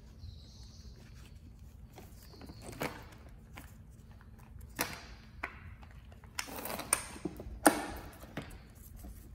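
Scattered sharp clicks and knocks of a car turner's drive motor and wheel assembly being handled and shifted into place, with a longer scraping rustle from about six and a half seconds in.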